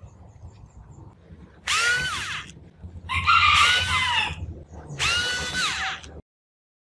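Handheld electric screwdriver whirring in three short runs, backing out the small screws that hold a cassette deck's capstan motor. Each run's whine climbs, holds and then drops away as the motor stops.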